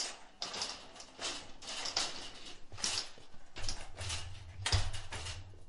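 Shopping cart being pushed along: a run of rattling, scraping noises about every half second, over a low hum that grows louder after about three seconds.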